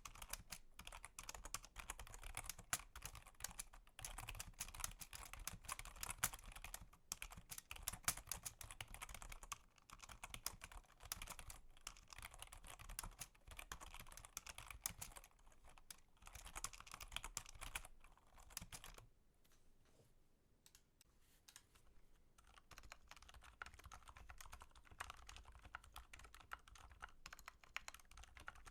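Typing on a computer keyboard: fast, continuous keystrokes. They pause briefly about two-thirds of the way through, then carry on more softly.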